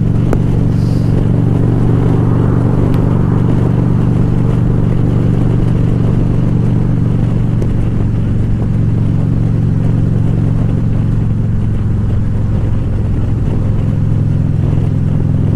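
Harley-Davidson Ultra Classic Limited's V-twin engine running steadily at highway cruise, with wind and road noise at the helmet microphone; the engine note shifts slightly about thirteen seconds in.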